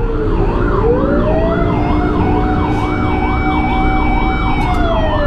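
Two emergency sirens sounding together: a fast yelp warbling up and down a couple of times a second, over a wail that rises about a second in, holds, and falls away near the end. Steady traffic and engine rumble runs underneath.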